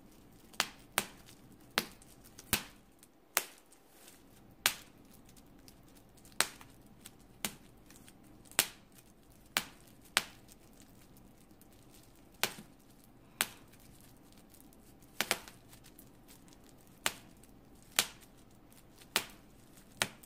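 Bubble wrap bubbles popping one at a time under fingertip pressure, about twenty sharp pops at uneven intervals of roughly a second, with a quick triple pop about halfway through.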